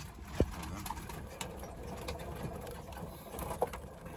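Small electric car's cabin rattling and clicking as it drives over a rutted dirt road, over a low tyre rumble, with a sharp knock about half a second in and another near the end.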